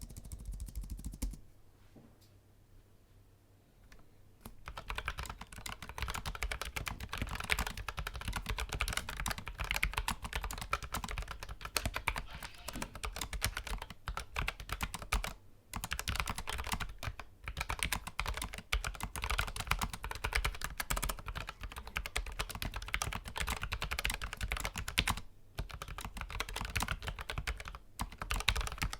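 Continuous typing on a Logitech MX Mechanical Mini keyboard with tactile brown mechanical switches: a dense, steady run of key clacks with a few brief pauses. It starts about four and a half seconds in, after a second or so of lighter typing on a different keyboard and a short quiet gap.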